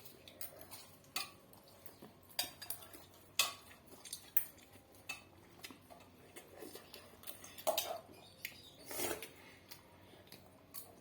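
Eating utensils clicking and scraping against a dish while eating noodles, in irregular sharp clicks, a few louder than the rest.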